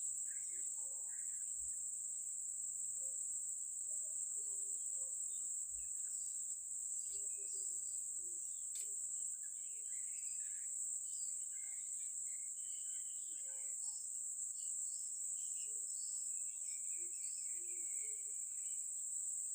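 A steady high-pitched insect chorus, crickets or similar, drones without a break, with scattered short bird chirps over it.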